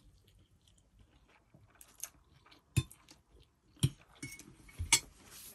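Cutlery clinking against plates during a meal: four short, sharp clinks roughly a second apart, with quiet in between.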